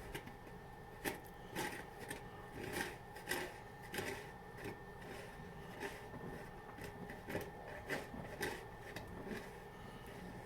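Snow shovel scraping and digging into snow in a series of short, irregular strokes, one or two a second.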